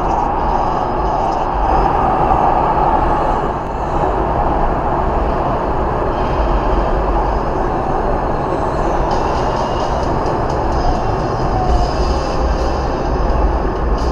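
Steady road noise inside a car's cabin at highway speed, about 70 mph: tyre and wind noise over a deep low rumble, unbroken throughout.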